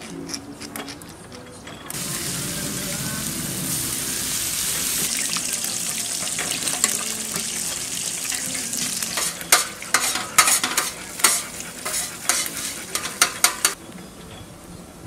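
Meat sizzling on a charcoal rotisserie grill: a steady hiss that starts suddenly about two seconds in and cuts off near the end. In the second half a run of sharp clicks sits over the sizzle.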